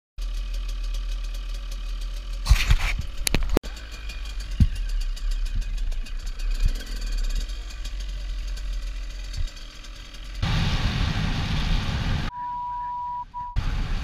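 Enduro dirt bike engines running on a gravel road, with a few knocks about three seconds in and louder riding noise from about ten seconds in. Near the end, a steady high-pitched beep lasting about a second.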